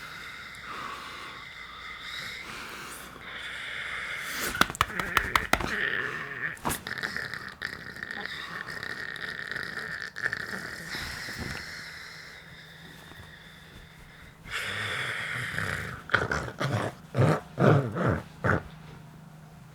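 A person snoring loudly in two bouts of rapid, rattling snores, one starting about four seconds in and a louder one near the end, with quieter breathing sounds between.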